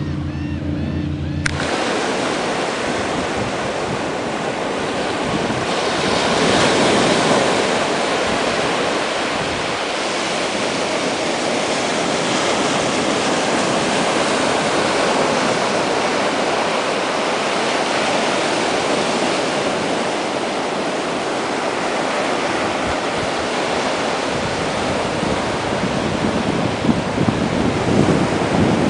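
Gulf of Mexico surf breaking and washing up a sandy beach, a steady wash of noise that swells about six seconds in, with wind buffeting the microphone. A low hum cuts off suddenly about a second and a half in.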